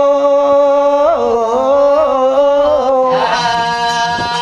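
Male Telugu Oggu Katha folk singer holding a long chanted note that wavers in pitch about a second in. About three seconds in, further voices or accompaniment join on a fuller, steady chord.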